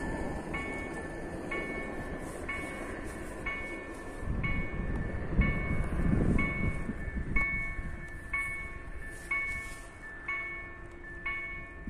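Level-crossing warning bell ringing, one strike about every second, telling road users that a train is coming. A low rumble swells under it in the middle and fades.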